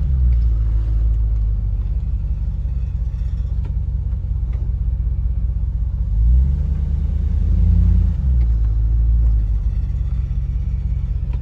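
Chevrolet Silverado pickup engine pulling away and speeding up, rising twice (once at the start and again about six seconds in) with faint clicks, under a rattling, rock-like sound under the truck that comes on when accelerating. The owner believes the starter's loose shaft is being pushed back into the flywheel.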